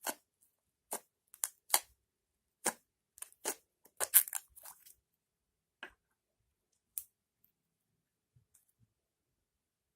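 Slime being squeezed and worked by hand, giving short, sharp wet clicks and pops as air pockets burst: a quick run of them over the first five seconds, then only a couple more.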